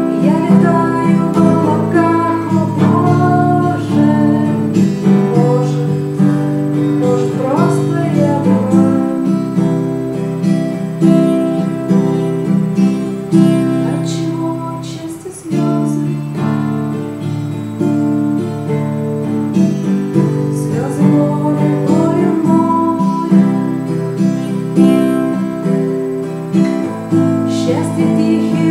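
Steel-string acoustic guitar strummed in chords, playing a song accompaniment with a brief let-up about halfway through.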